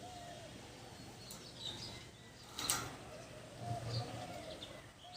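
Ringneck parrot chirping: one sharp, loud call about halfway through and a few fainter high chirps, over a short low note that repeats again and again.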